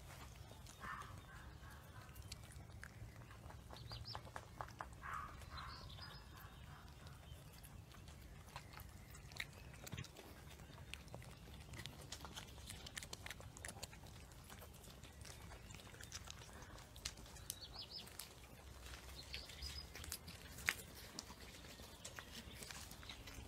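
A litter of Cavalier King Charles Spaniel puppies playing: faint scattered clicks, scuffles and chewing sounds, with a couple of brief high squeaks, the first about a second in.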